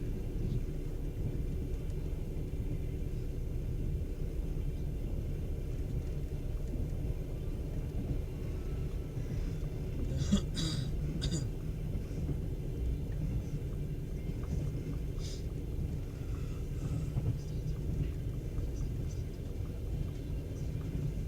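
Steady low rumble of a moving passenger train, heard from inside the carriage, with a few short sharp clicks about halfway through.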